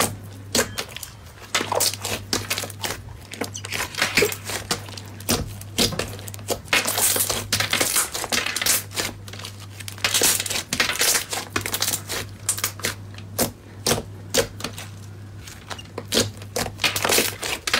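Thick, fluffy slime being kneaded, poked and stretched by hand, giving a dense, irregular run of crackling clicks and small pops from trapped air, with a steady low hum underneath.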